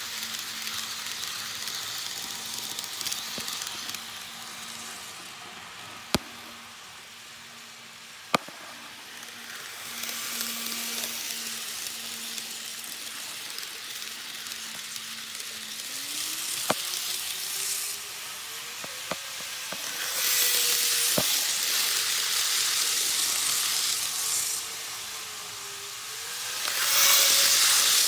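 Model trains running past close by: a hissing rush of wheels on track that swells loudest late on, with a thin motor whine that climbs in pitch about halfway through. A few sharp clicks stand out.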